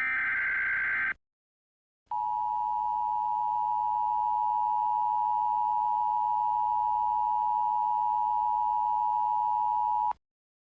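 Emergency Alert System signalling. First a one-second burst of screechy data noise from the SAME header. After a second's gap comes the EAS attention signal, a steady two-tone beep of 853 and 960 Hz, held for about eight seconds before it cuts off sharply.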